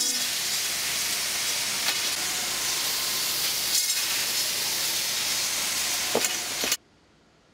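Steady hissing running noise of a steel pipe production line, with a few short metallic clicks, that cuts off abruptly near the end.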